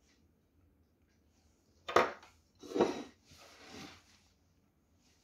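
A sharp clink about two seconds in, then two short scraping sounds, from kitchenware being handled.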